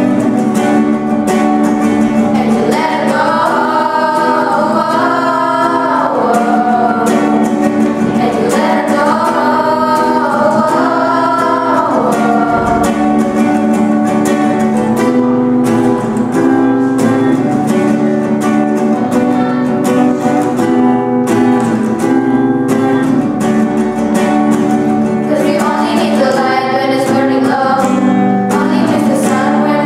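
Acoustic guitar strummed in steady chords with a small group of girls singing the melody in phrases over it.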